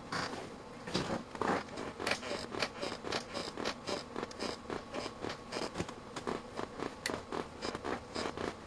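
Homemade surge generator firing a rapid string of high-voltage pulses, up to 2 kV, into a digital multimeter under test: sharp clicks, about four a second, uneven in strength.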